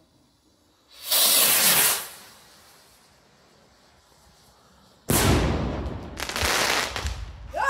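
Firework rocket launching with a hiss lasting about a second, then, about four seconds later, a sudden bang as it bursts, followed by about two seconds of fizzing noise from the burst.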